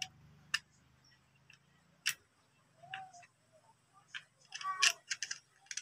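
Scattered small clicks and taps of bolts and a metal bracket being handled and set onto an angle grinder's gear head, with a quick run of clicks near the end.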